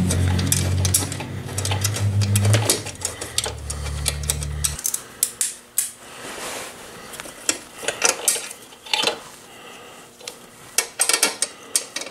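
Bursts of small metal clicks and clinks from hand tools and steel bolts against an aluminium radiator guard as it is bolted onto the motorcycle frame.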